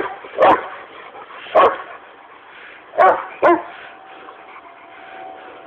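A dog barking in play, five short loud barks in the first three and a half seconds, then a lull.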